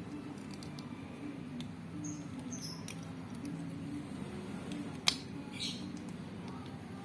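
Small plastic clicks of Rubik's Cube centre caps being handled and snapped onto the centre pieces, with one sharp click about five seconds in, over quiet background music.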